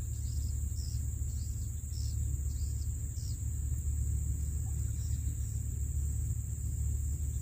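Swamp-edge insect chorus: a steady high drone, with a run of short chirps about twice a second for the first few seconds and a few fainter ones later, over a low steady rumble.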